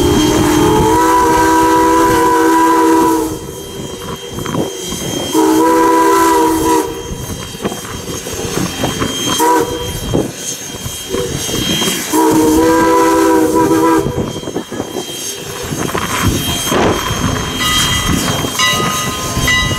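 Steam locomotive No. 89, an ex-Canadian National 2-6-0, blowing its three-chime whistle in three blasts: a long one at the start, a short one about five seconds in, and another long one about twelve seconds in. Between the blasts its exhaust chuffs from the stack as it works toward the crossing.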